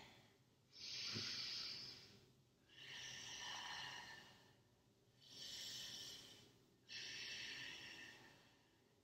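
A woman breathing deeply and slowly while holding a yoga pose: four long, airy breaths, each about a second and a half, with short pauses between them.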